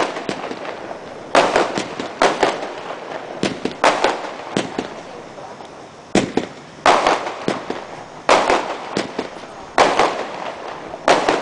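Thunder King 25-shot fireworks cake firing: about a dozen loud, sharp bangs, roughly one a second and often in pairs, each trailing off in echo.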